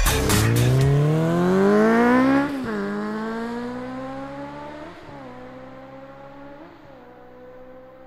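Motorcycle engine accelerating hard through the gears: the pitch rises steadily, drops sharply at an upshift about 2.5 s in, then climbs again with smaller shifts near 5 and 6.7 s, fading away as it goes.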